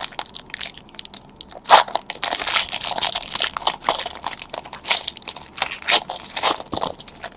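Crinkling and crumpling of a foil trading-card pack wrapper, a dense run of crackles.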